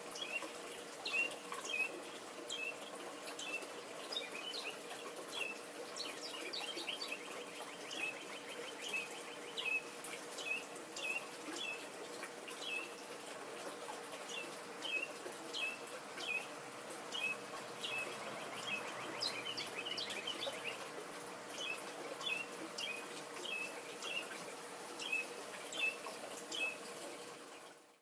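Small songbird singing: a long run of short, high chirps, about two a second, over a steady background hiss.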